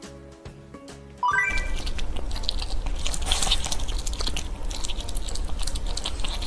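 Quiet background music, then about a second in a short rising run of chime notes leads into loud, close-up crunching and chewing: a pet eating crisp food, dense with sharp crackles.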